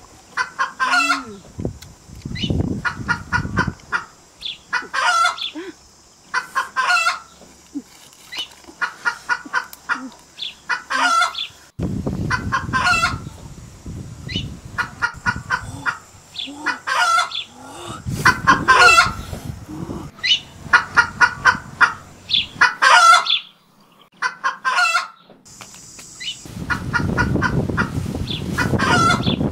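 Chicken clucking over and over in short quick runs, with brushing and rustling in dry leaf litter at intervals, loudest near the end.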